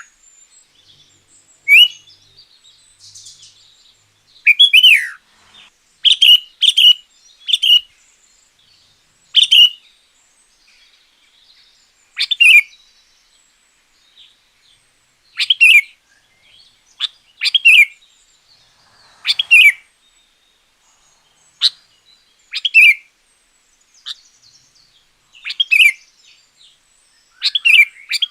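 Sooty-headed bulbul (kutilang) singing loudly. It gives short whistled phrases, each a quick downward slur, about one every two seconds.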